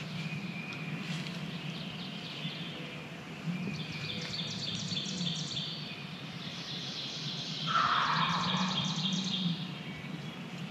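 Songbirds singing high, rapid trills in spring woods, with a wild turkey gobbling once, a short falling rattle, about eight seconds in.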